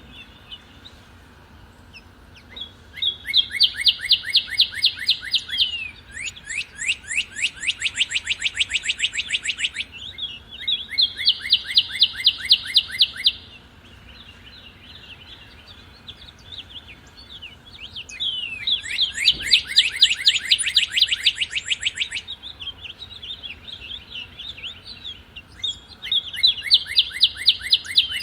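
Northern cardinal singing: about five phrases of fast repeated slurred whistles, each lasting a few seconds, with a long pause in the middle and softer chirps between phrases.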